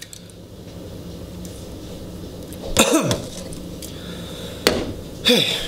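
A man coughs once, about three seconds in, over a steady low hum. A single short sharp knock follows a couple of seconds later.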